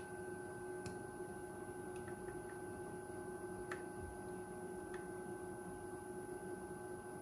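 Faint steady hum made of a few held tones, with a handful of light ticks spread through it.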